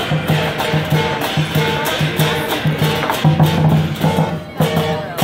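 Lion dance percussion: a large Chinese drum beating a steady rhythm of about three strokes a second, with crashing cymbals on the beats. The playing thins briefly a little after four seconds, then picks up again.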